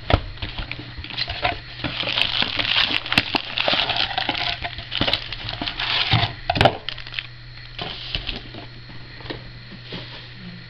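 Foil-wrapped trading card packs being handled and set down on a wooden desk: crinkly rustling and small clicks, with a couple of sharper knocks about six and a half seconds in, then quieter handling.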